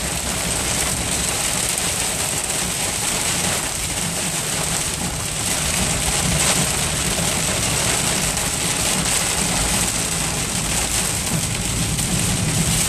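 Heavy rain and hail drumming steadily on a moving car's roof and windshield, heard from inside the cabin, along with the hiss of tyres on the wet road.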